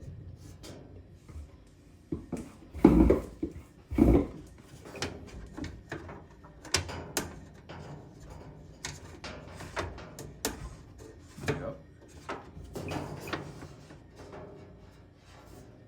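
Knocks, clicks and clatter of hands working on a portable clothes dryer's drum, pulley and housing while refitting its slipped drive belt, with two heavy thumps about three and four seconds in.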